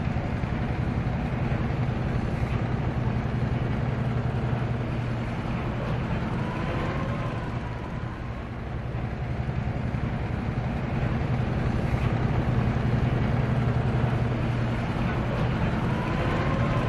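Steady low drone of a large ferry's diesel engine, running evenly under a wash of river and harbour noise. Faint wavering sounds rise over it about seven seconds in and again near the end.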